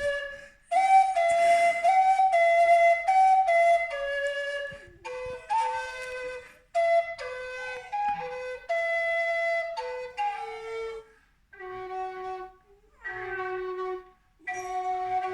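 A woodwind instrument playing a slow melody of held notes, stepping from pitch to pitch in short phrases with brief pauses between them.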